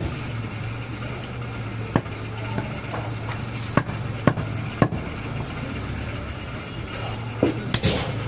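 Butcher chopping mutton with a blade: sharp single blows a second or two apart, then several in quick succession near the end, over a steady low hum.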